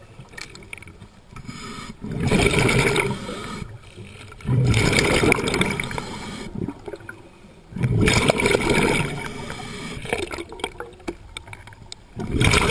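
Scuba divers breathing through regulators underwater: four loud bubbling rushes of exhaled air a few seconds apart, with quieter stretches between.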